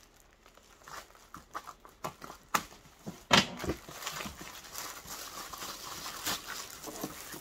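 Plastic shrink-wrap crinkling and tearing as it is pulled off a boxed doll outfit, with sharp snaps and knocks from handling the packaging; the loudest snap comes a little over three seconds in.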